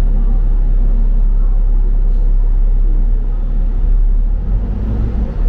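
Double-decker bus engine and road noise heard from aboard the bus: a steady low rumble that shifts in tone about four and a half seconds in.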